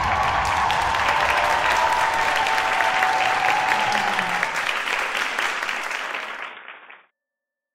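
Studio audience applauding, a dense patter of clapping with a single held high tone over it for the first four seconds or so. The applause fades and stops abruptly about seven seconds in.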